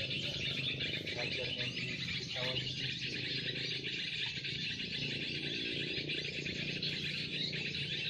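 Steady, dense chorus of high-pitched chirping calls, with faint low voices now and then.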